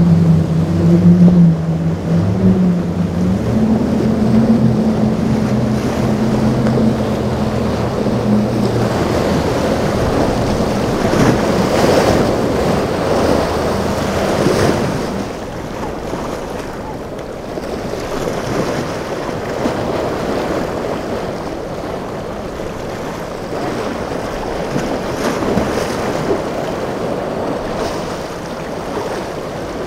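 A boat's engine drones steadily for the first several seconds and then fades out, leaving rushing waves and surf with wind on the microphone. The surf is loudest a little before the middle and eases off in the second half.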